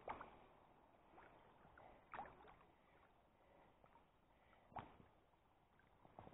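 Near silence: faint water background, with a couple of brief, faint sounds about two and five seconds in.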